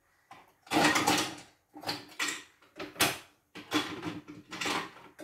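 CNY E960 embroidery machine's drive mechanism run in about six short bursts, roughly one a second, each a rough grinding clatter. This is the clatter of a stiff-turning drive, the sign of broken teeth on its gear.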